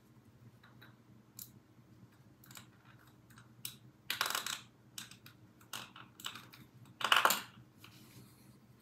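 Hands working a plastic coin capsule: scattered small clicks and taps, with two louder rustling scrapes about four and seven seconds in.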